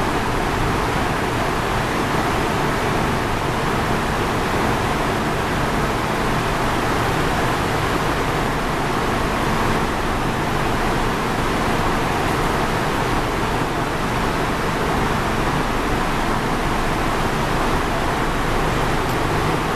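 Steady rushing hum of an underground metro platform with an MTR K-Train electric multiple unit standing at it, doors open, its equipment and the station ventilation running evenly with no change.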